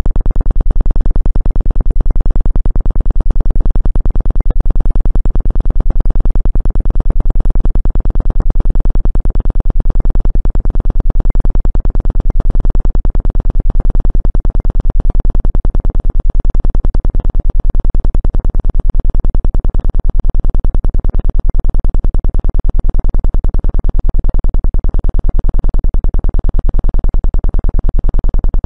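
Steady, loud electronic tone of a Rife frequency track, low in pitch and pulsing rapidly and evenly, unchanging throughout.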